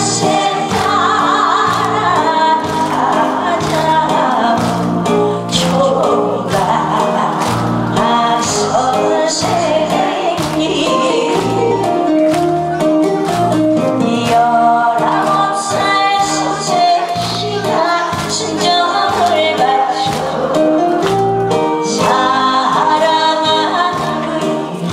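A woman singing a Korean trot song into a microphone over a backing track with a steady beat, played through the hall's PA speakers.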